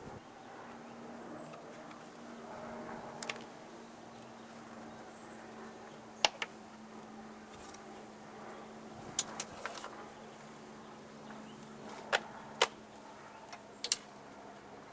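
Scattered sharp clicks and taps of tools and small parts being handled, about nine in all, several in quick pairs, over a faint steady hum.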